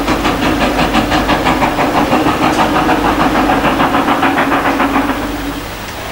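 Railway locomotive running with a rapid, even beat over a steady tone, fading away about five seconds in.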